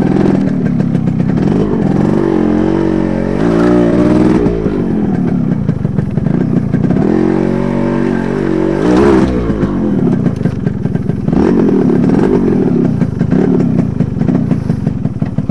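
Motorcycle engine working hard up a steep rocky trail, its revs rising and falling again and again as the throttle is opened and eased.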